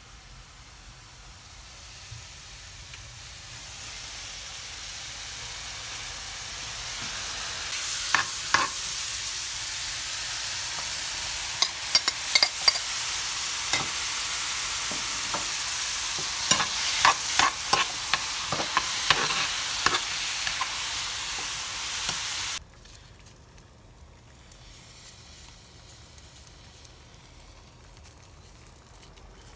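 Chopped zucchini and onion sizzling in a frying pan, with a utensil scraping and knocking against the pan as they are stirred. The sizzle builds over the first several seconds, holds steady and cuts off suddenly about three-quarters of the way through, leaving a quiet background.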